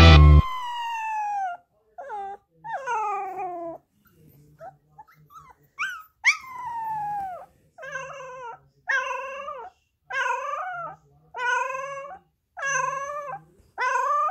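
Young puppy howling: first a few long calls that slide down in pitch, then, from about eight seconds in, a run of short wavering howls about one a second.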